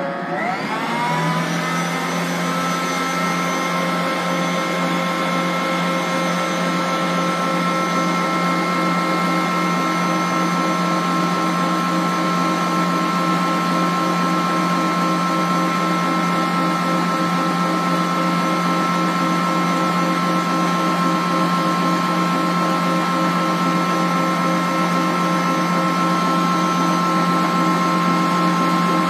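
Stand mixer with twin wire whisks beating egg whites into meringue while sugar goes in: a loud motor whine that rises in pitch as it speeds up in the first couple of seconds, then runs steady at high speed.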